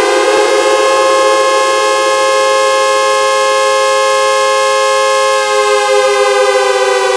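Synthetic air-raid-style siren sound effect, made in Audacity. It finishes rising to a held wail, stays steady for about five seconds, then starts to wind down in pitch near the end.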